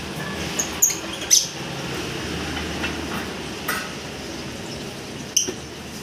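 Caged lovebirds giving short, sharp, high squawks, about five of them at irregular intervals.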